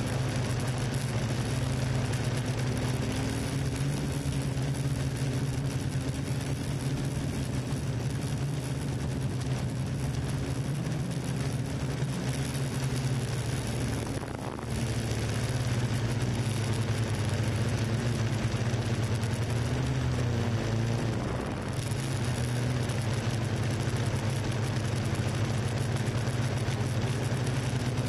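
Quadcopter drone's motors and propellers humming steadily in flight, with two brief dips in level and a slight shift in pitch partway through as the drone manoeuvres.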